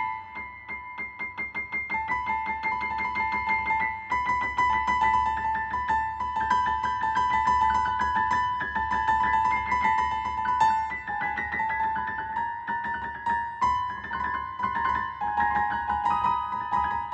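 Piano music: a fast, even run of repeated notes with a high melody line stepping slowly up and down in pitch.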